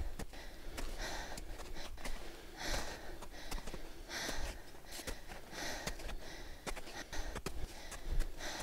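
A hiker breathing hard, one loud breath about every second and a half, with scattered light clicks between the breaths.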